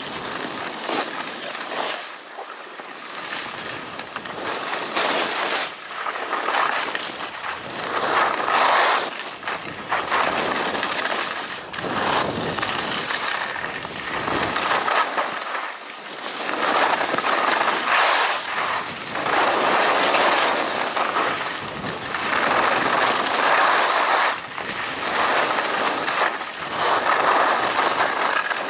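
Skis scraping and carving over packed snow on a downhill run, the hiss swelling and fading every couple of seconds, with wind rushing over the microphone.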